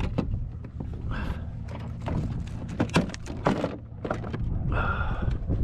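Scattered knocks and thuds of a redfish and tackle being handled against a plastic fishing kayak's deck as the fish is laid on a measuring board, over a steady low rumble.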